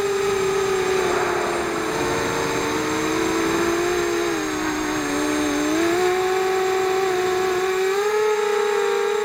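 FPV multirotor drone's electric motors whining in flight, several close tones that sag lower around the middle and climb back up near the end as the throttle changes.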